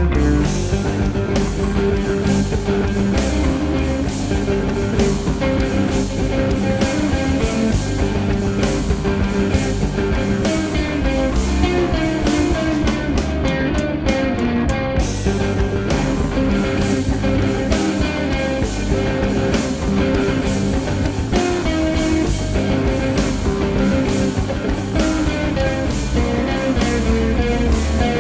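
Instrumental music with guitar over electronic textures and a steady beat.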